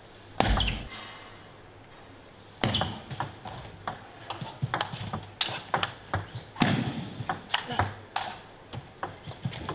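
Table tennis rally sounds: the ball clicking sharply off rackets and the table in quick, irregular strokes from about two and a half seconds in, over the hiss of an arena hall. A single heavy thump comes about half a second in.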